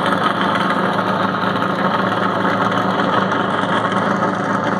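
NASCAR Cup stock car's V8 engine running steadily at low speed as the car rolls slowly along the track under a red flag.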